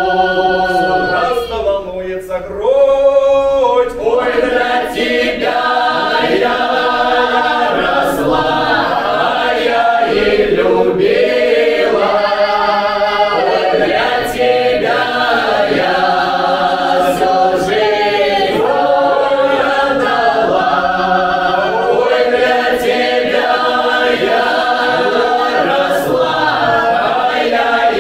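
Mixed men's and women's folk ensemble singing a Don Cossack folk song in several voice parts, unaccompanied.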